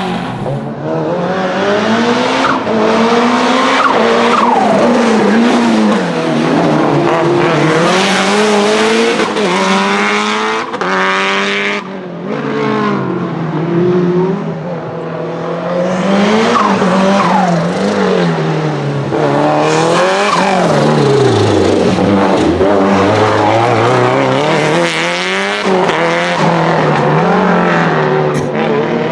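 The 500 hp Lancia Delta HF Integrale Evo 2's turbocharged four-cylinder engine, driven hard, revving up and falling back again and again between gearshifts and corners. Tyres squeal at times.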